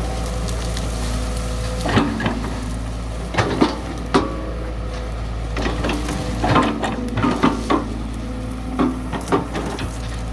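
Excavator's diesel engine running steadily, with irregular knocks and crunching bursts from the bucket working earth, in clusters about 2, 3.5, 7 and 9 seconds in.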